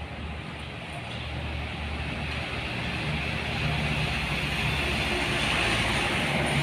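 Work train's diesel locomotive approaching, its engine hum and wheel noise growing steadily louder.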